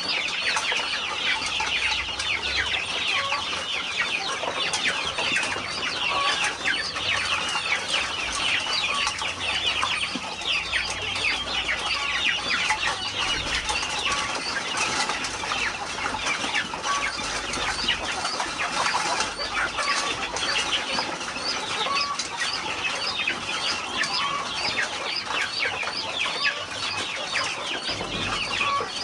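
A flock of chickens clucking and calling, with many short, high-pitched calls overlapping without a break.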